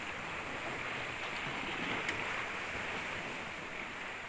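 Steady wash of moving water, with a single faint tick about two seconds in.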